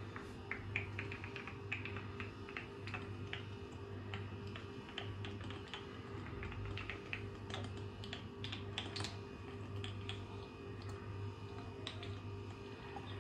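Cooking oil glugging out of an upside-down bottle as it is poured: a run of irregular soft clicks and pops, several a second, as air bubbles back into the bottle.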